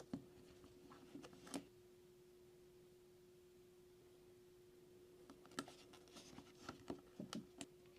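Faint scattered clicks and taps of handling, in two short clusters, over a steady low hum; near silence otherwise.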